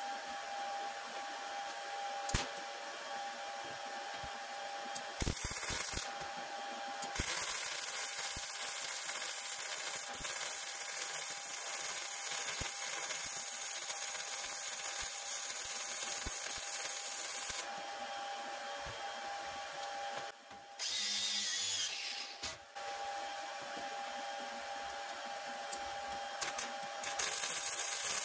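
Electric arc welding on steel angle iron and rebar: the arc gives a crackling hiss in separate runs, a short one about five seconds in, a long bead of about ten seconds, another short one, and a new run near the end, all played back sped up. A steady hum sits underneath.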